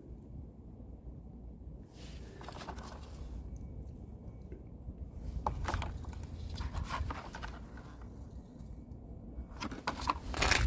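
Parts and their packaging being handled: bouts of rustling, scraping and clicking, three times, over a steady low rumble.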